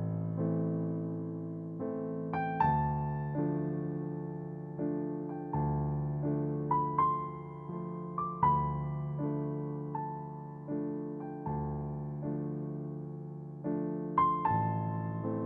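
Background piano music: slow, held chords with a few higher melody notes, each one struck and left to fade.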